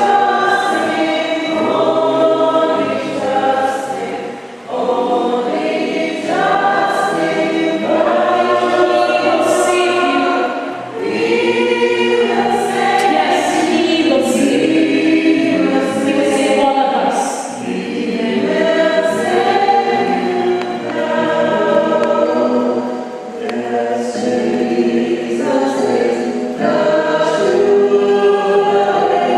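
A group of voices singing a Christian hymn together, in sung phrases a few seconds long with short breaks between them.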